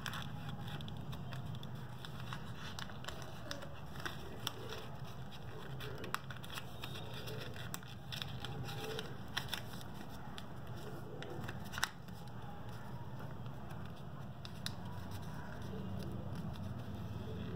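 Lined notebook paper being folded and creased by hand: soft crinkling with scattered sharp crackles and clicks as the folds are pressed down, over a steady low hum.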